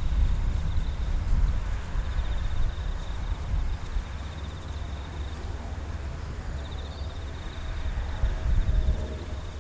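An insect's high, rapidly pulsing trill, heard in three stretches with short breaks, over an uneven low rumble.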